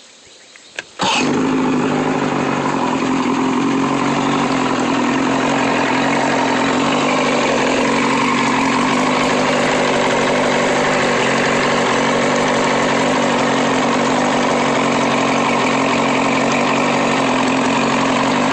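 A freshly repaired boat engine starts abruptly about a second in, just after a click, and then runs steadily without changing speed.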